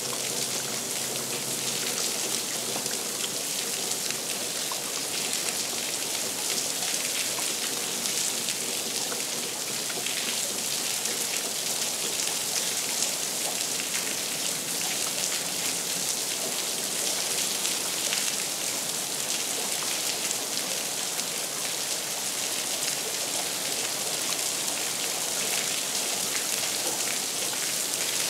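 Steady rain falling, an even, dense patter that holds at one level throughout.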